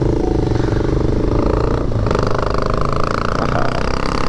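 A loud motorcycle engine running steadily in road traffic, a bike made loud enough that the rider nearby calls it noise pollution.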